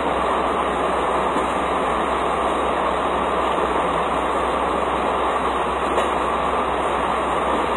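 Steady, loud drone of running diesel machinery, even and unchanging, with a low hum underneath and no rhythm or pitch change.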